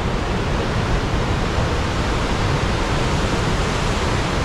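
Steady rushing of the flood-swollen Parvati River, a fast muddy torrent in spate, running unbroken.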